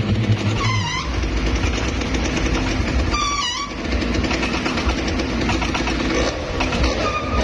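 Fairground pirate-ship swing ride rushing and rumbling as it swings past, under a loud steady din. Two short high squeals fall in pitch, about a second in and again about three and a half seconds in.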